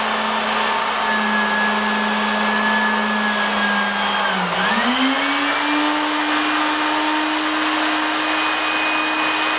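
Electric drill motor running steadily while it spins a metal spool holder against hand-held 400-grit sandpaper for polishing. About four and a half seconds in, its pitch dips briefly, then climbs to a higher speed and holds there.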